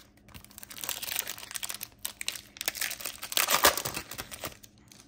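The foil wrapper of an Upper Deck MVP hockey card pack is crinkled and torn open by hand: a dense crackle that is loudest about three and a half seconds in.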